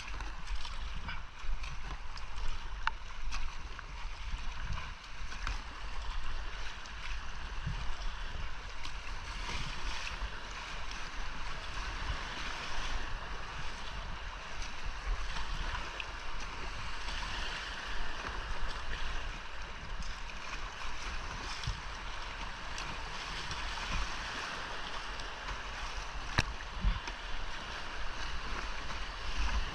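Rushing whitewater of a creek rapid heard from a kayak on the water, a steady dense roar of moving water with scattered splashes and sharp hits from paddle strokes. A low rumble of water and wind buffets the action camera's microphone underneath.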